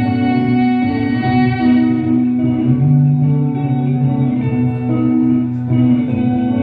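Guitar playing a slow, repeating melody of sustained notes, without vocals.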